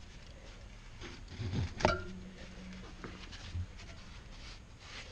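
Quiet handling sounds of string and debris being cut and pulled from a rotary tiller's tines, with a few dull knocks and one sharp metallic click with a brief ring about two seconds in.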